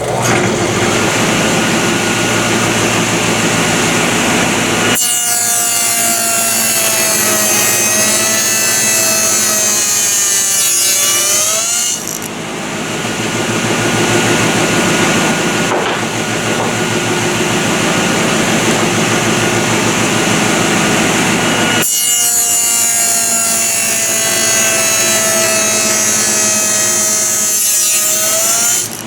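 Table saw running and ripping 2x4 lumber into frame side bars, two cuts about seven seconds each. During each cut the pitch sags slowly as the blade works through the wood, then climbs back as the cut ends, with the saw running steadily between them.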